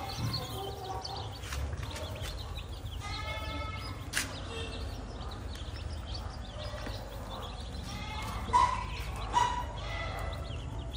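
A brood of newly hatched black-legged chicken chicks peeping constantly in many short high chirps. A louder call with several stacked tones comes about three seconds in, and two short louder sounds come near the end.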